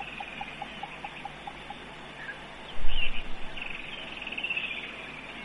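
Birds calling: a woodland kingfisher gives a high, rapid, slightly falling trill, and another bird sounds a row of short, evenly spaced low notes, about five a second, which stop just before two seconds in. A brief low thump near the middle is the loudest sound.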